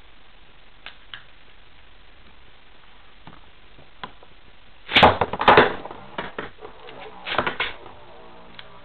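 Hard clicking and clattering of Beyblade spinning tops and their parts: a dense burst of sharp knocks about five seconds in, scattered clicks after it, and a second cluster a couple of seconds later.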